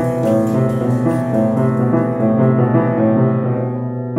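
Upright piano being played: a melody of shorter higher notes over a low bass note that is struck again and again, each note ringing and dying away.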